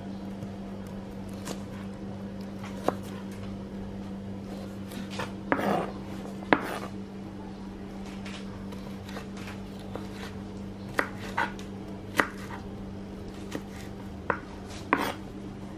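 Kitchen knife slicing raw jackfruit bulbs into thin strips on a wooden chopping board. The blade knocks sharply on the board at irregular intervals, with a longer scrape about five seconds in.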